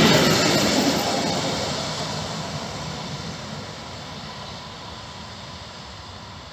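EN57AKS electric multiple unit rolling away down the track, its wheel and running noise fading steadily.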